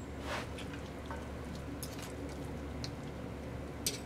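A metal fork working through falling-off-the-bone tender cooked possum meat in a pot: soft, wet squishing with a few light clicks of the fork, the sharpest near the end.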